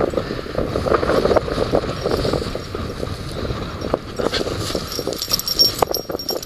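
Wind buffeting the microphone, with rustling through long grass and a few light clinks in the second half.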